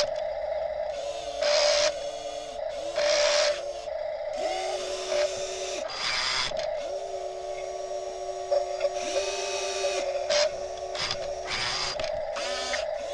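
Small electric gear motors of a radio-controlled toy wheel loader whining in short bursts, each a second or less, every second or two as it drives and lifts its bucket, over a steady hum.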